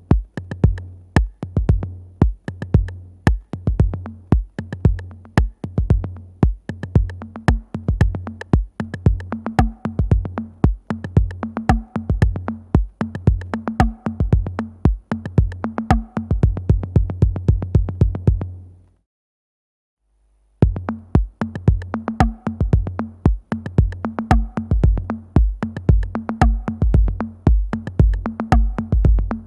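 Behringer RD-8 analog drum machine, an 808-style clone, playing a minimal electro beat of long, deep kick drums under sharp clicky percussion. About 19 seconds in it drops out for a second and a half, then the pattern comes back in.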